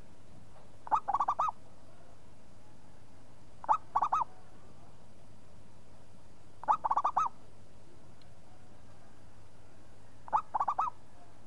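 Zebra dove (perkutut) cooing: four song phrases a few seconds apart, each a single opening note followed by a quick run of three to five rolling notes.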